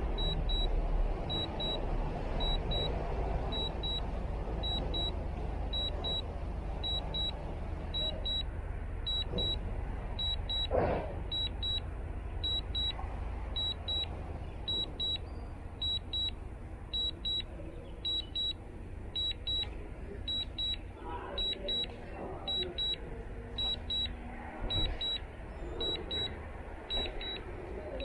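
Remote controller for a DJI drone beeping a quick double beep about once a second, the alert it sounds while the drone is on return-to-home. A steady low background rumble runs beneath it.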